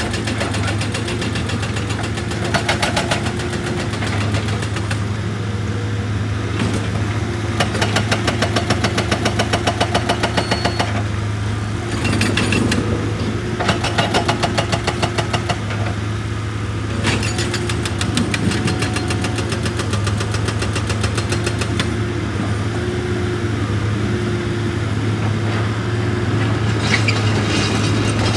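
Heavy diesel machinery running steadily, with several spells of fast, rhythmic mechanical hammering, about four blows a second, that start and stop.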